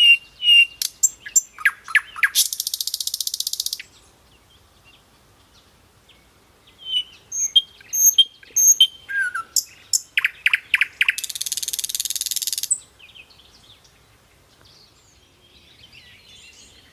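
A songbird singing two song phrases about nine seconds apart. Each phrase is a run of short chirped notes ending in a fast buzzy trill about a second and a half long. A few more chirps come near the end.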